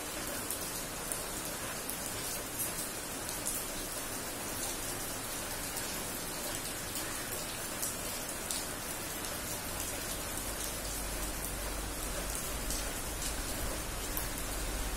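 Steady rain falling on wet paving tiles and concrete, with the sharp patter of individual drops close by. A low rumble builds in underneath near the end.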